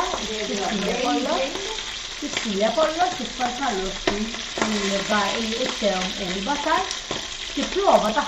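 Lamb shanks frying in pans on a gas range, a steady sizzle, with a woman's voice talking over it.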